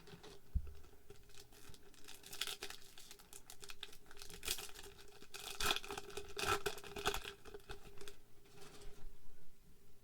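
Foil Pokémon booster pack wrapper crinkling and tearing as it is opened by hand, in a run of short, irregular rustles and rips.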